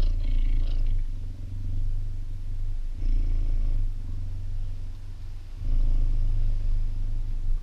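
Cheetah purring loudly as its head and ear are scratched: a deep, continuous rumble that swells louder and eases back in stretches of a second or two, a sign of the animal's contentment.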